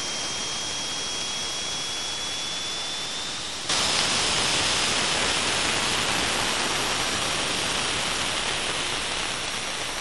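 Cassini's Radio and Plasma Wave Science recording of its ring-plane crossing in the gap between Saturn and the D-ring, converted to audio: a steady hiss with a faint tone slowly rising in pitch. About four seconds in, the tone stops and the hiss suddenly turns louder and brighter. No noticeable increase in dust-particle impacts is heard.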